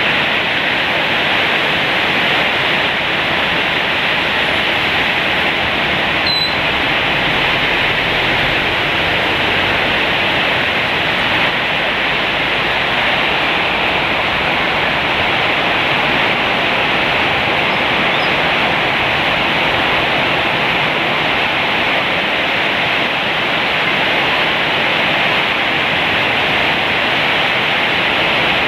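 Heavy downpour of rain: a loud, steady, dense hiss that holds even throughout.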